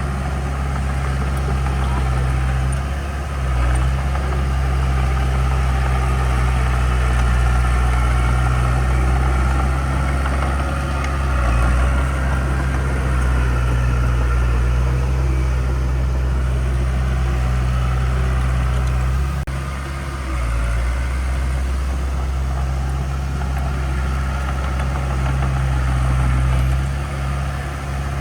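Diesel engine of heavy earthmoving equipment running steadily with a deep drone, its level dipping and swelling briefly a few times.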